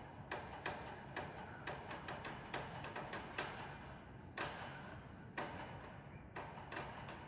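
A stick banging repeatedly on a balcony, heard through closed windows. The knocks come irregularly, a few a second, some ringing briefly, with a couple of pauses of about a second near the middle.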